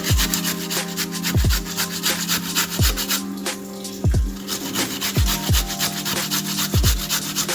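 Carrots being shredded on a grater: quick repeated rasping strokes. Under them runs background music with deep booming bass kicks about once a second.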